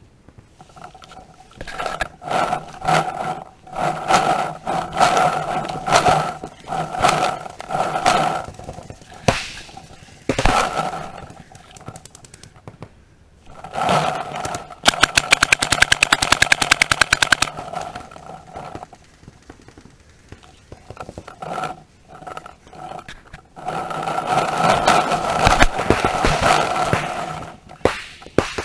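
Paintball markers firing in several spells of rapid shots, the loudest a fast, even rattle of more than ten shots a second about halfway through.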